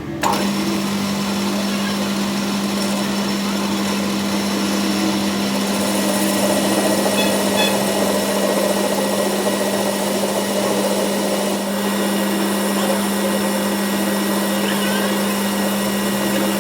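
Machine motor running steadily with a constant low hum, starting abruptly right at the beginning.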